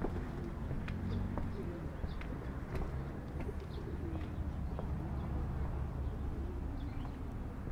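A pigeon cooing on and off over a steady low rumble of street ambience, with a few faint high chirps and light clicks.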